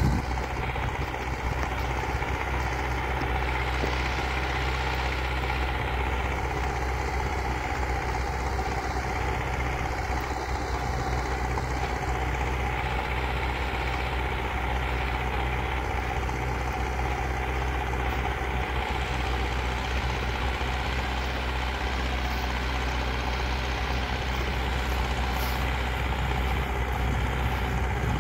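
Zetor 7340 Turbo tractor's four-cylinder turbocharged diesel engine running steadily at a constant pitch while pulling a plough.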